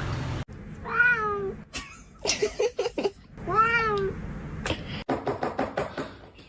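A domestic cat meowing twice, two drawn-out meows that rise and fall in pitch, about two and a half seconds apart, with short clicks and knocks between them.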